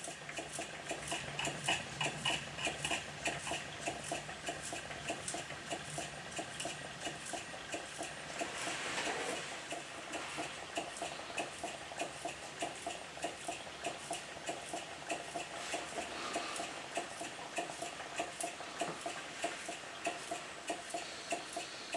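Single-cylinder engine of a Minnie-type live-steam model traction engine running under steam, ticking over with quick, even beats.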